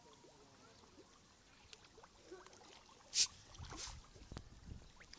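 Water splashing twice, a little after three seconds in, sharp and loud, as a large fish breaks the river surface; low rumbling and a few knocks follow.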